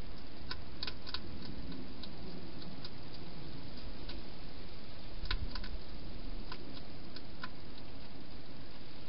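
Wild hedgehog feeding from a bowl inside a plastic feeding box: irregular sharp clicks and crunches, in small clusters with the loudest about five seconds in, over a steady hiss.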